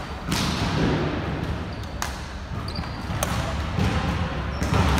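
Badminton rally: racket strings striking the shuttlecock four times, a sharp crack every second and a half or so, each one echoing in the hall. Brief shoe squeaks on the wooden court come between the hits.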